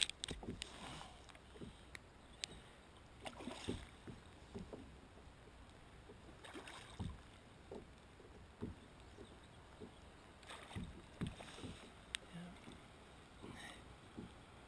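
Water slapping and splashing around a plastic sit-on-top kayak, with scattered light knocks on the hull.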